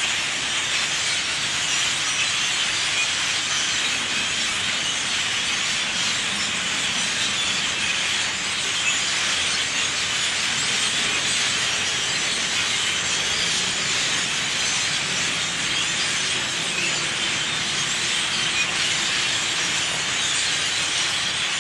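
Massed chatter of a huge flock of thousands of birds roosting in a tree, so many calls at once that they merge into a steady, hissing din.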